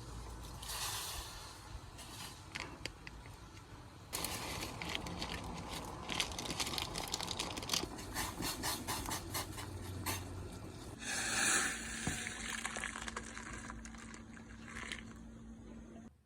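Crackling wood fire: a steady hiss with many small pops and crackles, which changes abruptly about four seconds in and again about eleven seconds in.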